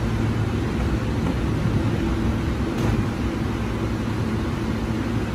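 Steady hum of a stationary JR East electric commuter train standing with its doors open, its onboard equipment running with a low, even drone.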